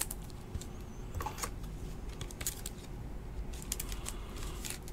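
Faint, scattered light clicks and taps of trading cards and a clear plastic card holder being handled.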